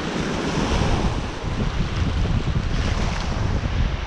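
Small waves washing over a shallow rocky reef shelf, with wind buffeting the microphone.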